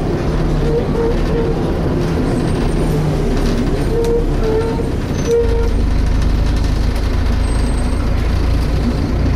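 Volvo B7TL double-decker bus heard from on board: the engine and cooling fan run steadily with a loud, even rumble, and the rumble deepens about five seconds in.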